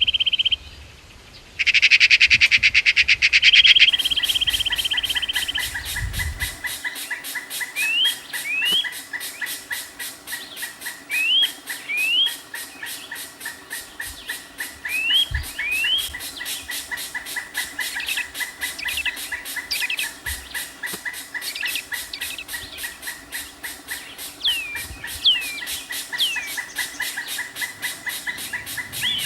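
Birds calling with short rising chirps, often in pairs, over a fast, steady pulsing and a constant high tone. The first few seconds are louder, broken into two bursts.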